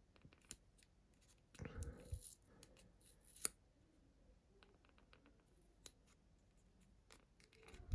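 Faint handling of small snap-fit plastic model kit parts, with scattered clicks and rubbing as fingers press a round eye piece into place, and one sharper click about three and a half seconds in.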